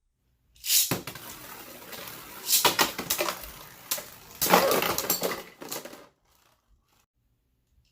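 Beyblade Burst spinning tops hitting a plastic stadium about a second in, then whirring and clattering with several sharp clashes against each other. The sound cuts off about six seconds in.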